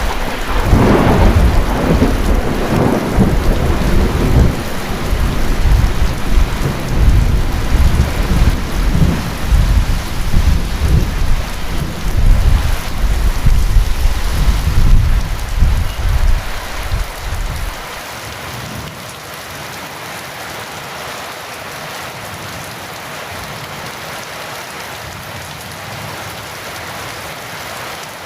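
Heavy rain falling steadily, with a long rumble of thunder that fades out about two-thirds of the way through, leaving the even hiss of the rain.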